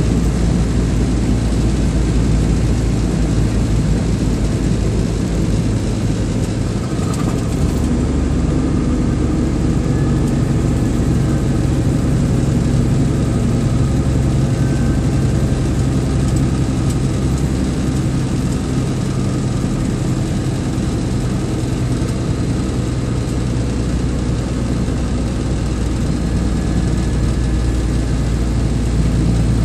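A vehicle's engine pulling steadily uphill, with steady road noise. The engine note changes about seven seconds in.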